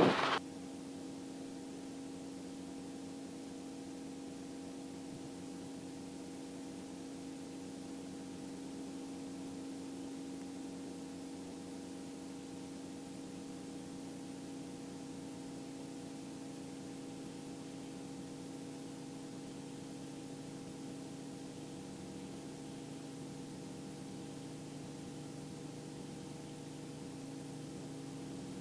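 Faint steady hum with several held tones over a light hiss: the running Robinson R44 II helicopter, heard only faintly through the intercom audio feed.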